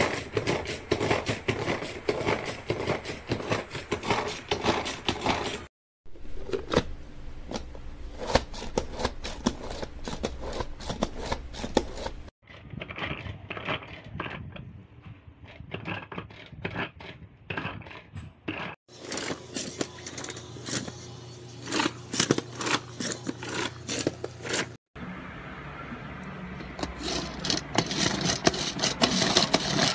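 Electric food chopper running, its steel blades chopping food in a glass bowl: dense rapid clicking and scraping over a low motor hum. The sound breaks off and changes abruptly several times.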